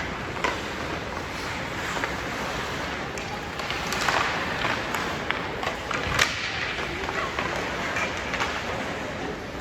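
Scattered knocks and thuds from the play of a team sports game, with faint voices, over a steady background hiss. The sharpest knock comes about six seconds in.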